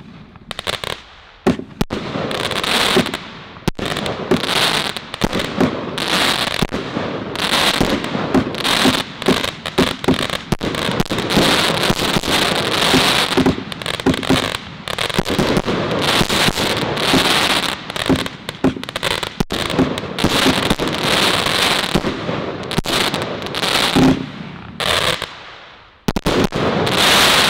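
A big firework firing: continuous dense crackling from its crackling golden bouquet, with crackling pink, blue and gold star bursts overhead. Near the end it dips briefly, then a last loud flurry of crackles before it dies away.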